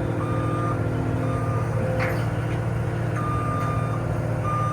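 Cat 289D compact track loader's diesel engine running steadily while its backup alarm beeps on and off in uneven short and longer beeps as it manoeuvres. A brief knock about two seconds in.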